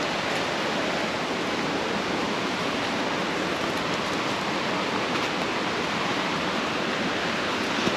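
Steady rush of flowing water, an even unbroken hiss.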